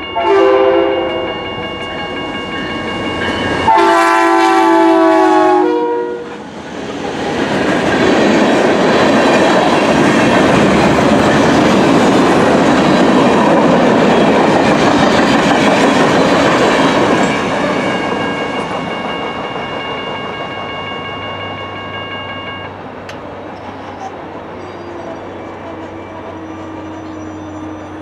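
Diesel freight locomotive's air horn sounding two blasts, each dropping in pitch as the locomotive passes, followed by a freight train's cars rolling past with a steady rumble and clickety-clack that slowly fades. A low engine hum comes in near the end.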